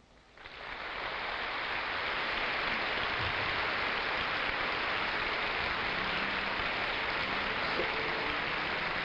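Concert audience applauding, swelling in about half a second in and holding steady.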